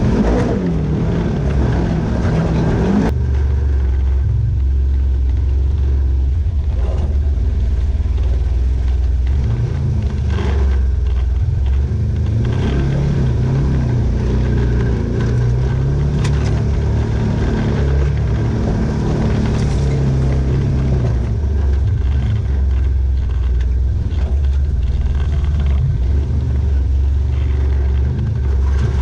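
Off-road vehicle engine revving over the first three seconds, then running on with a steady low drone.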